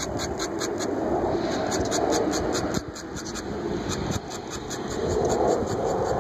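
Steady outdoor rumble like distant traffic, with the quick, repeated scratch of a steel dip-pen nib hatching short strokes on paper, several strokes a second.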